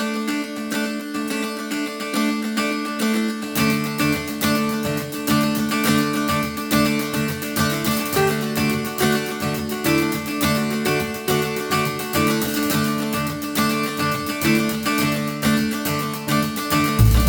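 Background music led by plucked and strummed acoustic guitar with a steady pulse. A fuller low part comes in about three and a half seconds in.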